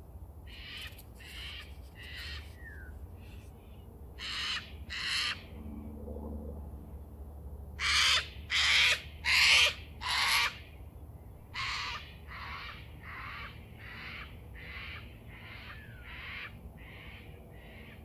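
A crow cawing in runs of short, harsh calls: three, then two, then four loud ones about eight seconds in, followed by a long string of quieter caws. A steady low rumble runs underneath.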